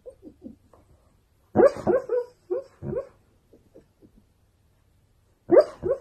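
A sleeping husky giving a run of short, muffled woofs and whimpers, with a louder cluster about a second and a half in and another near the end.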